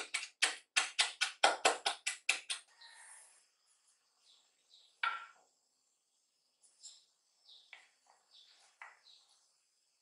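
Chef's knife chopping parsley on a wooden cutting board: about a dozen quick blade strikes in the first two and a half seconds, then the chopping stops. About five seconds in comes a single knock as the knife is laid down on the board.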